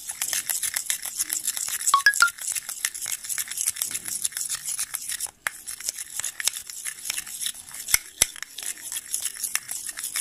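Metal spoon stirring a wet paste fast in a ceramic bowl, with rapid scraping and clicking against the bowl, a couple of ringing clinks about 2 seconds in and two sharper knocks near the end.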